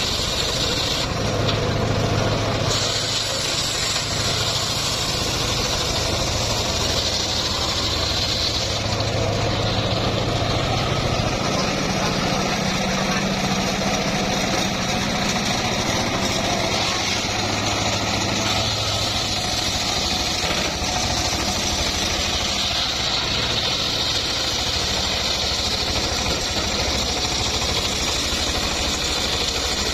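Engine-driven homemade circular sawmill running steadily with a low engine hum, and a high hissing band that comes and goes.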